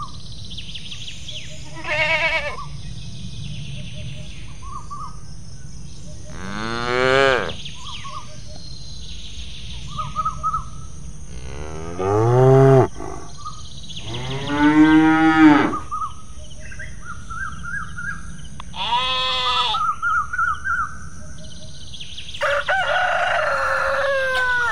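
Recorded farm-animal sounds: cattle mooing several times, with small bird chirps in between. A rooster crows near the end.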